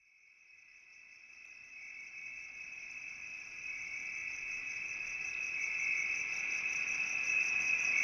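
Steady high insect trilling, like a chorus of crickets, fading in from silence about half a second in and slowly growing louder.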